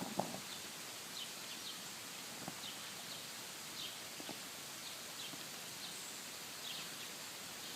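Steady hiss of rain falling outdoors, with faint short bird chirps scattered throughout and a few soft knocks near the start.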